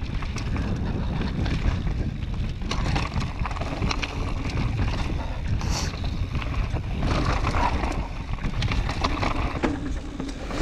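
Wind buffeting the microphone of a camera on a mountain bike going down a trail, a steady low rumble, with many small knocks and rattles from the bike over rough ground.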